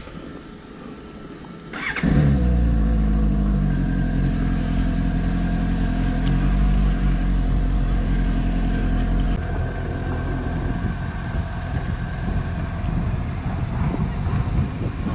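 Suzuki GSX-S750 inline-four motorcycle engine starting with a click about two seconds in, its revs dropping quickly into a steady idle. From about nine seconds in, the sound turns rougher and more uneven as the bike moves off and rides along the street.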